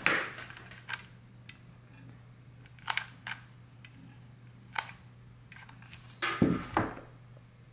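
Scattered sharp clicks and taps from handling a sealing-wax glue gun and a brass seal stamp on a ceramic plate, with a louder, duller knock near the end, over a faint steady low hum.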